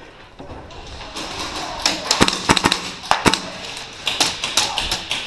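Airsoft gunfire in a close-quarters game: about a dozen sharp, irregular cracks and clacks of shots and BBs hitting plywood walls, starting about two seconds in.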